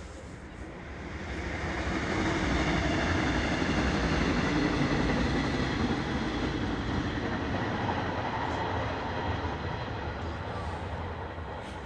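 A train passing by: a steady rumble that builds over the first couple of seconds, holds, then fades toward the end.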